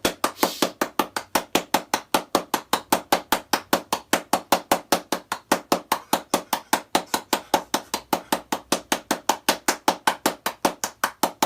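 Rapid, evenly spaced sharp taps, about five a second, keeping a steady rhythm without a break.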